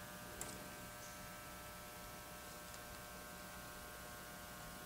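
Faint steady electrical hum of room tone, with one faint tick about half a second in.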